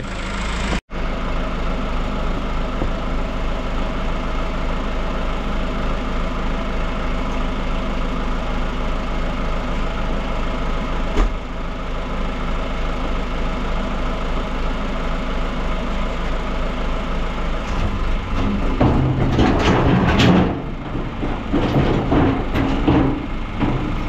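Tractor engine running steadily. Over the last few seconds it gets louder and rougher, with uneven clattering.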